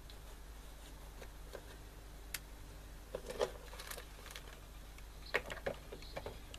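Mid-1970s Falcon transistor radio just switched on after repair and struggling to work. Scattered clicks and crackles sound over a low steady hum, and near the end a high steady whistle sets in.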